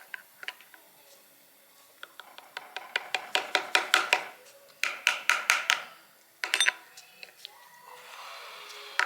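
Hammer tapping a bearing/seal driver to drive a seal into the axle housing: quick runs of sharp metallic taps, several a second, in three bursts with short pauses between.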